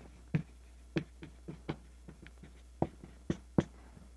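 Dry-erase marker writing on a whiteboard: about a dozen short, sharp strokes and taps at an uneven pace as a word is written out.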